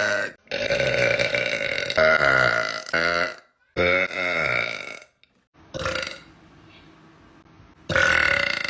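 A woman burping: a run of about six long, loud belches in quick succession, each half a second to a second and a half, with a short quieter one just before a pause of about two seconds and a last loud one near the end.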